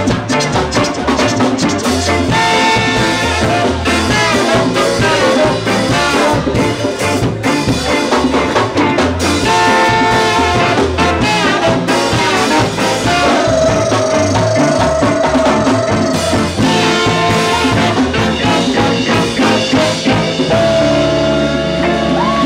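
A live ska band playing, with saxophone and trombone over drum kit and guitar in a steady, driving beat. Long held notes stand out about two-thirds of the way through and again near the end.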